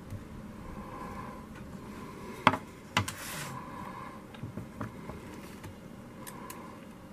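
Handling noise from a handheld plastic gloss meter as it is lifted and set down on its calibration reference tile: two sharp knocks about half a second apart, a brief scrape, then several lighter clicks of the casing and buttons over steady room hiss.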